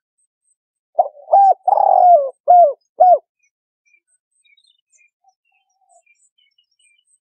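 Spotted dove cooing: one phrase of five notes over about two seconds, the third note long and falling. Faint chirps of small birds sound in the background.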